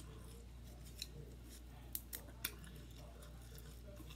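Faint clicks of eating utensils: a few short, sharp taps, one about a second in and three close together around two seconds in.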